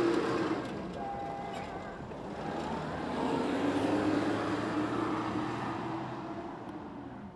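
Engine of a 4x4 SUV revving hard under load on a dirt off-road course. It is loudest about four seconds in, then fades as the vehicle pulls away.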